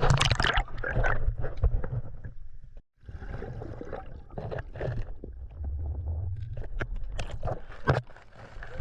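Muffled water noise from a diver's camera in the water, with scattered knocks and scrapes; the sound cuts out briefly about three seconds in.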